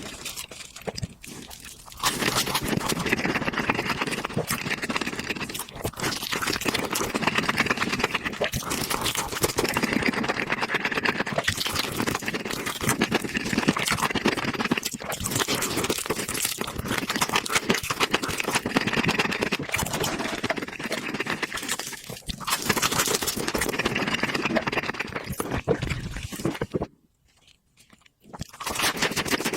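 Close-up chewing and crunching of fried chicken, a dense crackle of crisp bites and wet chewing that goes on almost without a break, dropping out briefly near the end.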